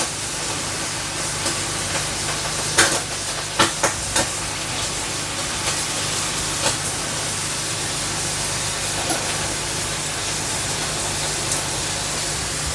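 Halloumi grilling cheese frying in a pan: a steady sizzling hiss with a low hum underneath and a few soft crackles about three to four seconds in.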